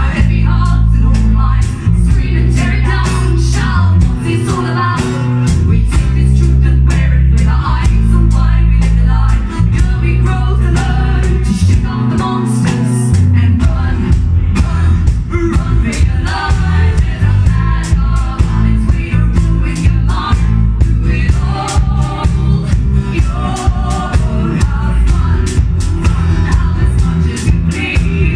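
A live band playing loud music: guitar, a heavy bass line and steady drum hits, with singing over the top.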